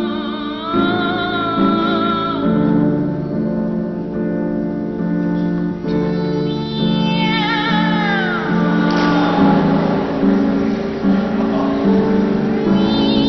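A boy soprano singing a comic cat song with piano accompaniment, the voice imitating meowing. The voice wavers and slides down in pitch about seven seconds in, over steady repeated piano chords.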